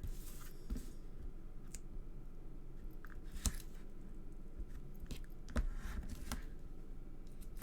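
Handling of paper and double-sided tape on a craft table: a few short clicks and crackles spread out over a low steady background hum.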